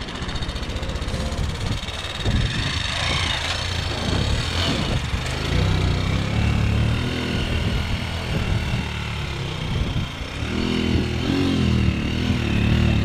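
Vehicle engine running while under way, a steady low hum that grows stronger about halfway through.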